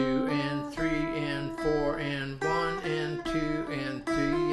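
Electric guitar playing single notes one after another up and down a scale, over a repeating chord pattern.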